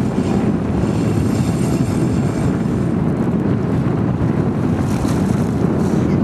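Wind buffeting the microphone over water washing beside a boat's hull: a steady low rumble.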